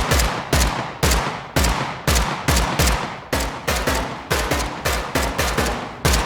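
Designed bullet-impact sound effect of shots hitting metal targets, built from two toy-gun-on-metal-plate samples and retriggered in rapid, slightly irregular repetition, about two hits a second. Each hit has a low thump and a short ringing tail.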